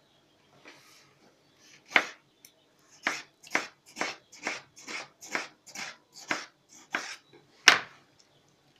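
Kitchen knife slicing a tomato on a plastic cutting board, the blade tapping the board with each cut. A single knock comes about two seconds in, then a steady run of about a dozen cuts, roughly two a second, ending on a louder tap.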